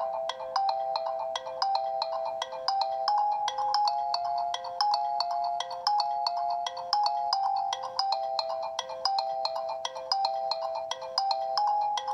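Built-in phone tone of a Reeder P13 Blue smartphone: a bright electronic melody of short, quick notes, looping the same phrase over and over.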